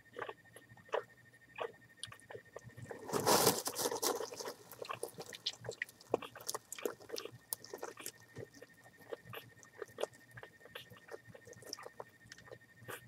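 Straw bedding crackling and rustling as a mother dog and her two-week-old puppies shift in it, in many small irregular crackles with one longer, louder rustle about three seconds in.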